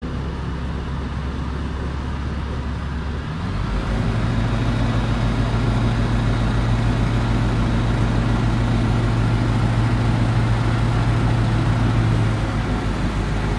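Light aircraft's piston engine and propeller droning steadily, heard from inside the cockpit. The power is increased about three and a half seconds in, with the engine note rising and getting louder, then reduced again near the end, power adjustments on final approach.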